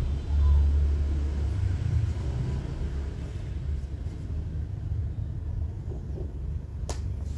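Steady low rumble, with one sharp click near the end.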